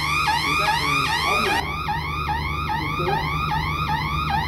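Electronic trip-alarm hooter of an 11 kV vacuum circuit breaker panel wailing in a repeating rising sweep, about two and a half sweeps a second. It is sounding because a protection relay has tripped on a simulated transformer winding-temperature fault. Faint voices are heard underneath.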